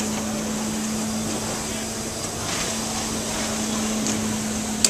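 A replica Otto-Langen atmospheric engine running: a steady low mechanical hum with a few faint ticks, and one sharp click near the end.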